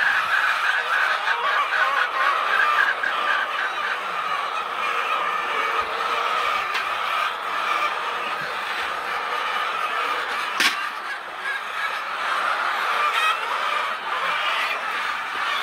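Many birds calling at once, their calls overlapping into a steady din, with a rapid run of repeated notes near the start. A single sharp click sounds about ten and a half seconds in.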